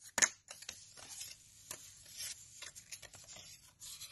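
Paper banknotes rustling in a string of short scrapes and swishes, the sharpest about a quarter second in.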